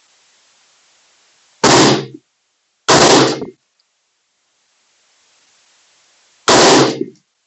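Three rifle shots from a Radical AR-15 in .223 firing a group: two about a second apart, then a third about three and a half seconds later, each loud and sharp with a short echo dying away.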